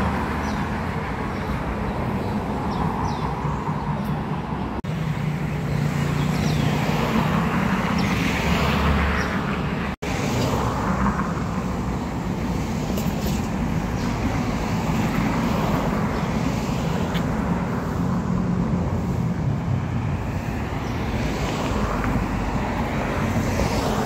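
Steady city road traffic noise, cars running past on the street, with two brief drop-outs where the clips are cut together.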